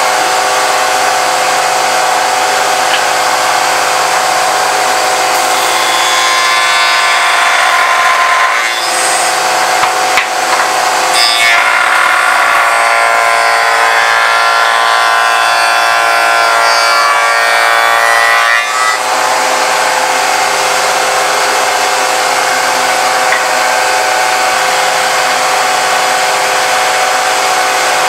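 Spindle moulder running steadily, cutting a profile into narrow wood strips fed past the cutter by hand, with two louder, harsher cutting passes, one about six seconds in and a longer one from about eleven to eighteen seconds.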